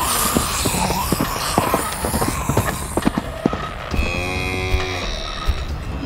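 A cow mooing once, about four seconds in, for about a second. Before it comes a noisy rush with a quick run of knocks and thuds.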